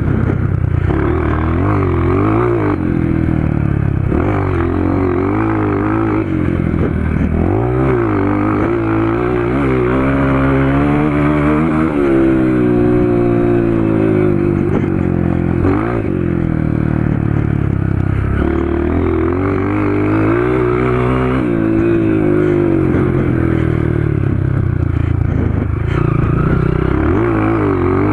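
Honda CRF 230 dirt bike's single-cylinder four-stroke engine, breathing through a PowerCore 2 exhaust, being ridden hard. Its pitch climbs and drops again and again with the throttle and gear changes.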